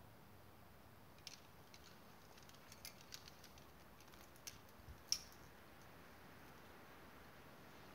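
Near silence broken by a scattered run of faint, sharp metallic clicks and clinks of climbing gear, the loudest about five seconds in.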